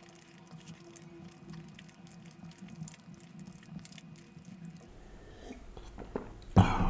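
Close-miked mouth sounds of someone chewing a sticky, sauce-coated fried chicken lollipop: faint wet clicks and smacks. Near the end comes a sudden, much louder sound.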